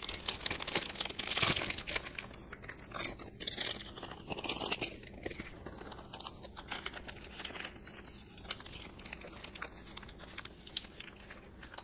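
Thin plastic freezer zipper bag crinkling and rustling in the hands, an irregular run of crackles, as it is turned inside out and pulled over a foamcore strip.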